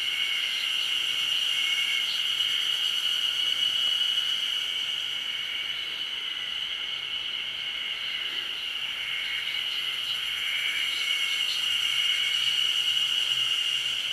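Insects droning steadily in an unbroken high-pitched buzz, with a few faint short notes over it.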